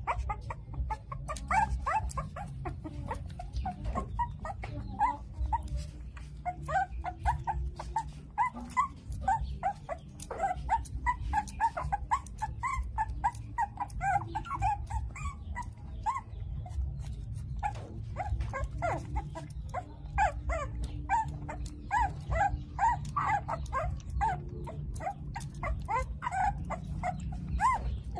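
Hungry young puppies whining and squeaking in many short, high yelps in quick succession while they jostle for a milk bottle, with clicking throughout and a steady low rumble underneath.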